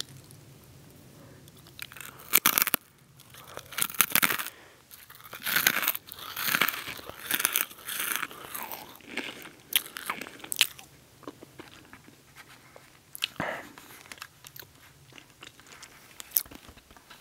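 A small hard pretzel being bitten and chewed close to the microphone. Loud, sharp crunches start about two seconds in and run densely for several seconds, then thin out into softer chewing with a couple of single crunches near the end.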